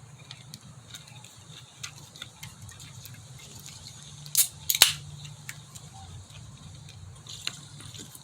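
Chewing a raw jalapeño pepper: many small crunchy clicks, with two sharp, louder crunches about four and a half seconds in, over a low steady hum.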